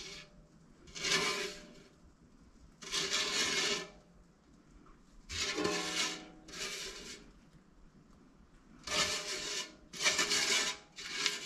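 Silicone spatula scraping sticky sugar candy mixture from the inside of a stainless steel stockpot, in seven separate strokes of about half a second to a second each.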